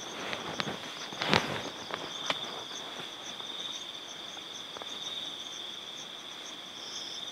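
Night insects chirring in one steady high trill. A few clicks and rustles come in the first two seconds, the loudest a little over a second in.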